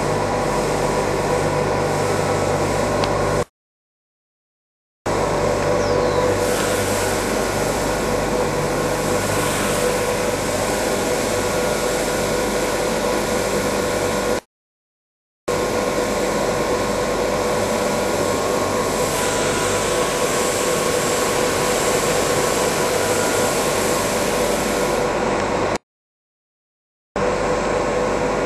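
Bag filling-and-stitching packing machine running with a steady mechanical drone and hum. It cuts out to complete silence three times for about a second: about three and a half seconds in, again around fourteen and a half seconds, and near the end.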